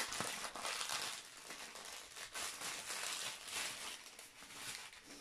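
Clear plastic packaging of a diamond-painting kit crinkling and rustling as it is handled, with a scatter of small crackles.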